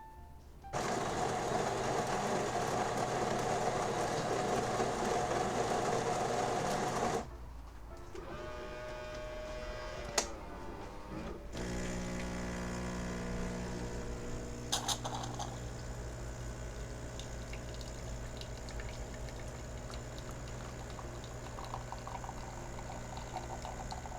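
Delico fully automatic coffee machine making a test shot: its built-in grinder runs loudly for about six seconds, then the brewing unit's motor moves with a click, and then the pump hums steadily as the coffee is extracted.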